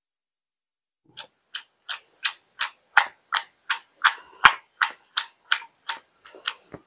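Cooked chickpeas and fava beans tossed in a small stainless-steel pot, clicking against the steel about three times a second, starting about a second in.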